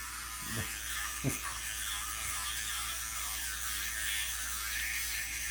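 Electric toothbrush buzzing as it brushes a dog's teeth, with two short downward-sweeping sounds about half a second and just over a second in.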